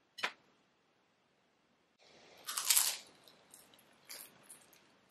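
A short click just after the start, then a crisp chip bitten into about two seconds in with one loud crunch, followed by four softer crunches as it is chewed.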